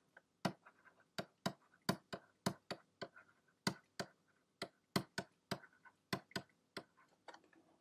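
Stylus tapping and clicking on a drawing tablet while words are handwritten: a quick, irregular string of sharp ticks, about three a second.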